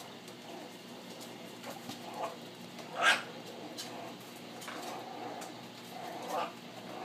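Miniature Pinscher yelping and whimpering: a few short high yips, the loudest about three seconds in, and a softer, longer whine near the end.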